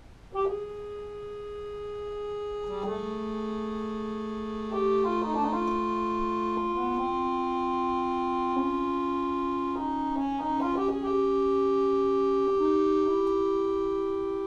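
Piano accordion playing a slow passage of long held reed notes, starting suddenly about half a second in. A lower note joins about three seconds in, and the voices move by small steps from one held chord to the next.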